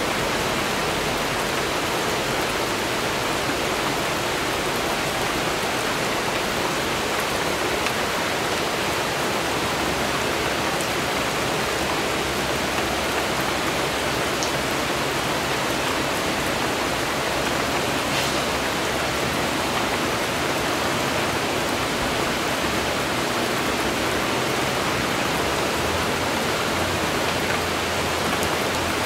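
Steady rain falling: an even, unbroken hiss at a constant level.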